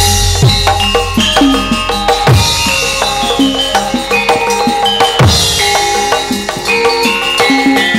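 Javanese gamelan ensemble playing an instrumental passage: hand-drum strokes that slide down in pitch over ringing, struck metal gamelan notes.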